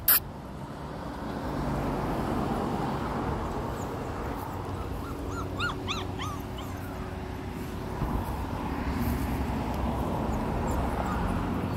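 Bordoodle puppy whimpering: a quick run of short, high-pitched yelping cries about five seconds in, with a few fainter squeaks later.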